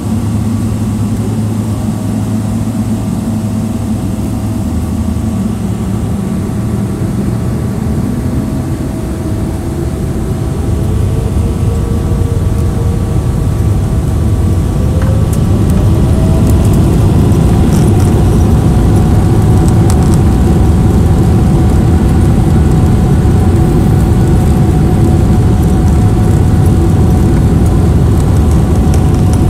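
Boeing 777-300ER's GE90-115B engines heard from inside the cabin, spooling up to takeoff thrust. About ten seconds in, a whine rises in pitch and the rumble grows louder, then holds steady and loud as the airliner accelerates down the runway.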